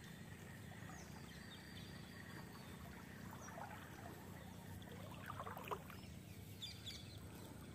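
Quiet marsh ambience under a steady low hum, with a few faint bird calls and a brief burst of short chirps about five to six seconds in.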